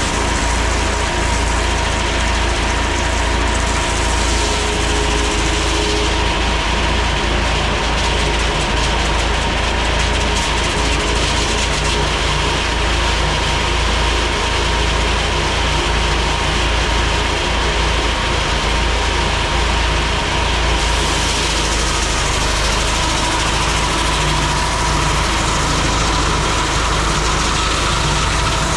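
Vintage tractor engine running steadily, driving belt-driven sawmill machinery, with a steady whine over the engine's low rumble.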